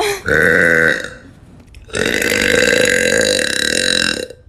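A woman's two deep burps: a short one, then about a second later a long, drawn-out one lasting over two seconds.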